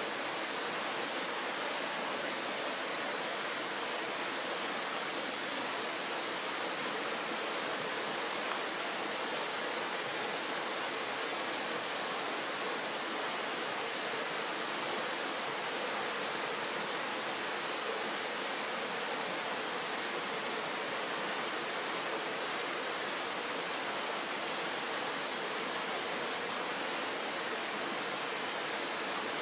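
Shallow mountain stream rushing over a stony bed and a small riffle: a steady, even rush of water.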